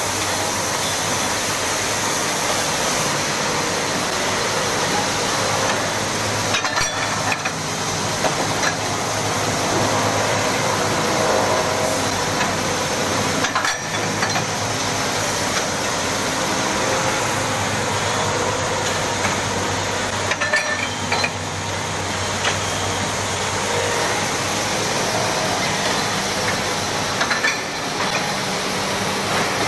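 Double disc grinding machine running, grinding connecting rods under a coolant spray: a steady mechanical noise with a hum, broken briefly about every seven seconds.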